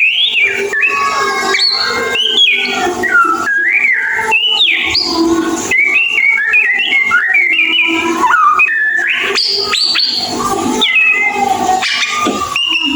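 White-rumped shama (murai batu) singing: a loud, unbroken run of short whistled notes that slide up and down in pitch, in the fast, continuous 'ngeriwik' delivery.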